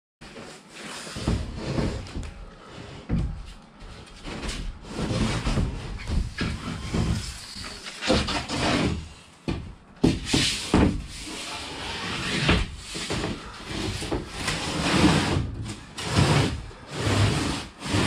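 A full sheet of plywood being handled and laid down as a temporary floor in a boat cabin: irregular wooden knocks, bumps and scraping as the sheet is tilted, slid and set in place.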